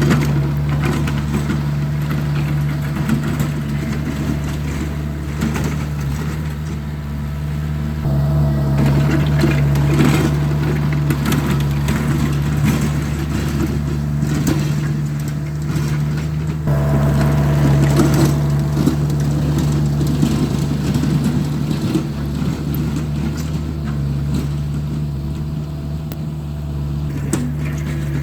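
Engine of a Vermeer compact loader running steadily while its snow box pushes snow across the driveway. The engine gets louder about eight seconds in and again near seventeen seconds, as it takes more throttle or load.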